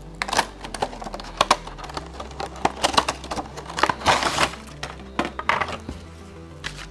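Hand-opened small cardboard box and plastic packaging: irregular clicks, crackles and rustles as the box is worked open and a plastic insert tray is pulled out, with a longer crinkle about four seconds in. Background music with a steady bass line runs underneath.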